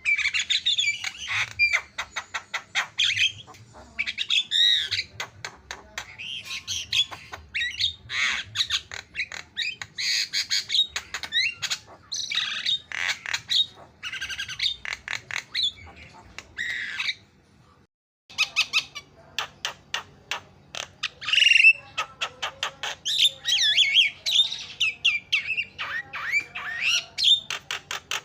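Javan myna (jalak kebo) singing a fast, continuous chattering song of harsh squawks, rapid clicking runs and warbled whistles. It breaks off briefly about two-thirds of the way in, then resumes.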